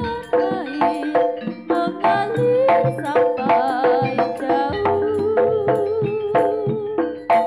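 East Javanese jaranan ensemble playing live: sharp kendang drum strokes over sustained gamelan tones, with a wavering melody line held through the middle.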